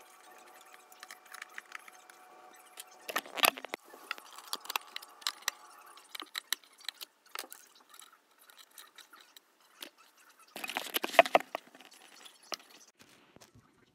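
Clicks, knocks and scrapes of flat-pack cabinet assembly by hand: a screwdriver working screws and cam fittings into the white panels, and metal hardware clinking. A louder spell of scraping and knocking comes near the end.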